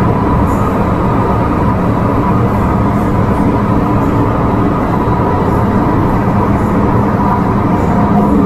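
An MTR M-Train electric metro train running, heard from inside the carriage: a loud, steady rumble of wheels on rail with a steady hum running through it.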